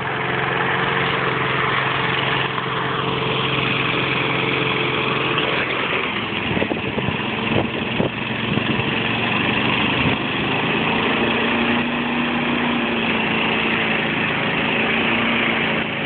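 Masport rotary lawn mower engine running, smoking heavily from burning oil that the owner believes got past the piston rings while the mower was propped upright. Its steady note breaks up for a few seconds in the middle, with a few knocks, as it is pushed across the grass, then runs steadily again.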